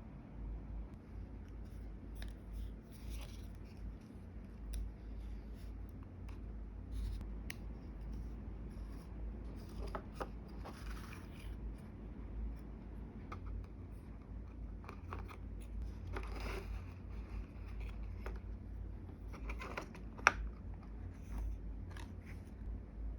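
Close-up hand-crafting sounds of snipping and scraping small parts for a miniature build, made up of scattered short clicks and brief swishes. A single sharp click near the end is the loudest sound.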